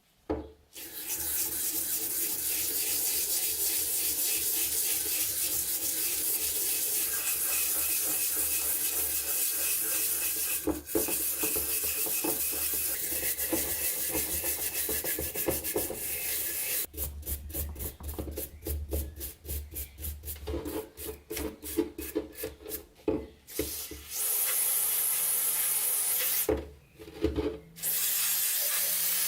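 Abrasive scraping of rust off a metal padlock, a steady rasping. Past the middle it breaks into a run of quick, separate back-and-forth strokes, then turns steady again.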